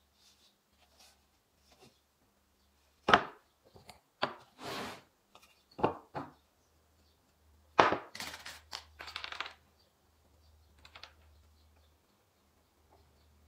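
Pine boards being handled and set down on a workbench: a string of sharp wooden knocks, the loudest about three seconds in and again near eight seconds, with short bouts of clattering between them and a last knock about eleven seconds in.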